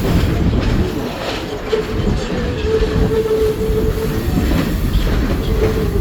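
Passenger train rolling along the track: a steady rumble of the wheels with rail clacks, and a steady wheel squeal held for a couple of seconds from about two seconds in, coming back briefly near the end.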